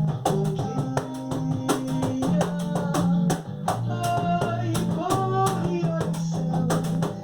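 Cajon struck in a steady rhythm, several strokes a second, playing along to a recorded samba song with acoustic guitar and a singing voice.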